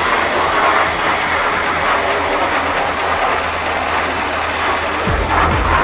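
Steady jet noise from Canadair CT-114 Tutor jets flying overhead in formation. Music with a regular beat comes in near the end.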